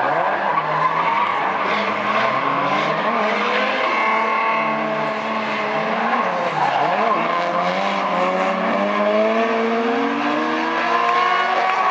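Two drift cars sliding through the corners in tandem, their engines revving up and down hard, with the pitch climbing in the last few seconds, over tyres screeching as they spin in smoke.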